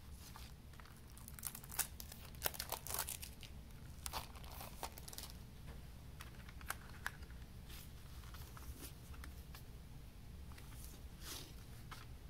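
Plastic shrink wrap being torn open and peeled off a CD jewel case, crinkling in a dense flurry of crackles for a few seconds from about a second and a half in, then scattered crinkles and clicks as the case is handled.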